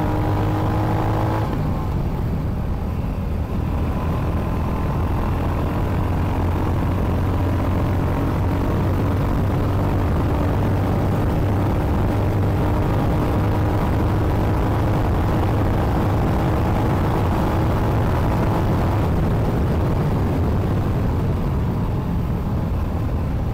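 Royal Enfield Hunter 350's single-cylinder engine running at road speed, with steady wind noise on the microphone. The engine note changes about a second and a half in, then climbs slowly as the bike gathers speed.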